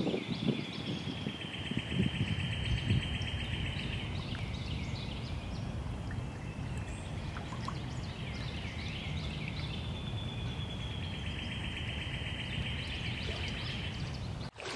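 Spring swamp ambience: two long, even trills of several seconds each, the second starting about halfway through, with scattered bird chirps around them.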